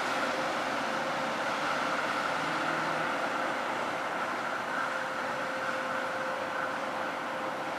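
A steady, unexplained droning hum with a thin held tone over a wash of noise; the person recording takes it for some machine.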